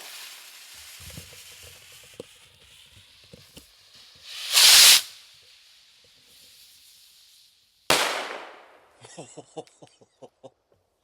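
A consumer stick rocket (Nishiki Galaxy willow rocket) fired: the fuse hisses and fades, then the rocket launches with a loud whoosh about four and a half seconds in. Its shell bursts with a sharp boom about three seconds later, followed by a short run of quick clicks.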